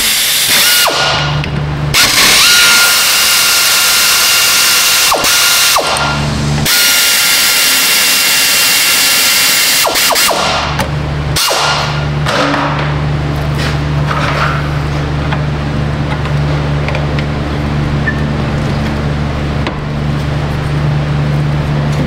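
Power ratchet spinning out the rear brake caliper bolts of a 2014 Toyota Prius, running as a steady whine in several long bursts through roughly the first ten seconds. After that only a steady low hum remains, with faint handling noises as the caliper is worked loose.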